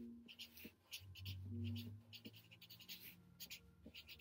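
Felt-tip marker scratching across notepad paper in many short strokes as words are written out by hand, with a faint low tone swelling underneath in the middle.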